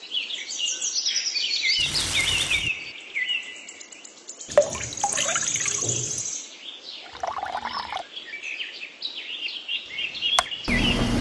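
Small songbirds chirping steadily, with a few brief handling noises. Near the end there is a click, then a small electric motor starts to hum steadily.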